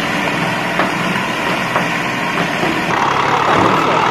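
Forestry tractor's diesel engine running steadily. About three seconds in, the sound cuts to a different, slightly louder engine sound.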